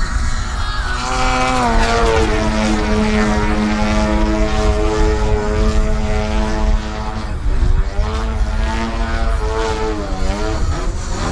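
Engine and propeller of an AJ Laser 230 aerobatic RC model plane in flight. The pitch drops about a second and a half in and holds steady, then dips and swings back up twice and climbs near the end as the throttle and the plane's passes change, with a low rumble underneath.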